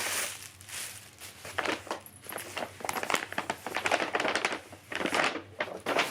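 Gift wrapping paper being torn and crumpled as a present is unwrapped: a run of irregular rustling and crackling bursts that stops abruptly at the end.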